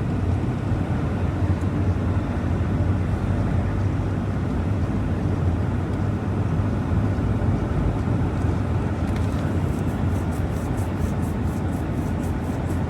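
Steady road and engine noise of a vehicle heard from inside the cab while driving at speed. From about nine seconds in, faint light ticking comes about four times a second.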